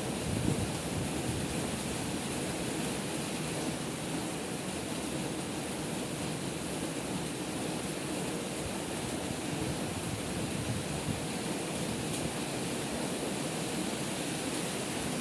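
Heavy rain pouring down in a storm, a dense, steady hiss without let-up.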